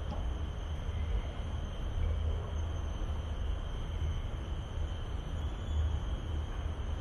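Steady outdoor ambience: a continuous, wavering low rumble like wind on the microphone, under a thin, steady high-pitched insect drone.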